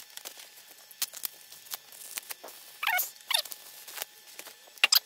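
Hard drives being unwrapped from bubble-wrap packaging, played back sped up: scattered crinkles and clicks, with short, high, squeaky chirps about three seconds in and a run of them near the end.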